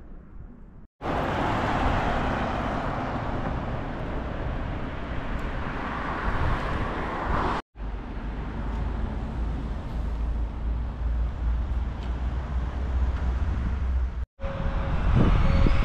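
Steady vehicle noise: a low rumble under a rushing hiss, broken by three abrupt silent gaps.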